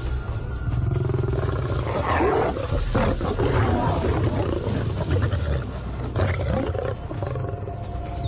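Male lion snarling and growling in a harsh, rough bout that starts about a second in and dies down near the end: an aggressive threat display of dominance over rival males.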